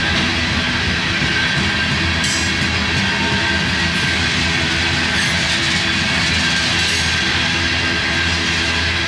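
BNSF freight train of open-top coal cars rolling past at speed: a steady, loud rumble of wheels on rail with a few sustained tones running through it.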